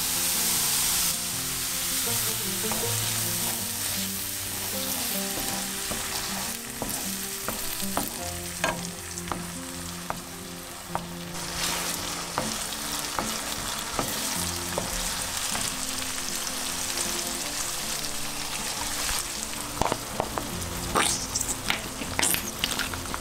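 Sesame oil sizzling in a frying pan of minced onion, garlic and quinoa, brightest in the first second as the oil goes in, then a steady sizzle. A wooden spatula stirs through it with scattered clicks and scrapes against the pan.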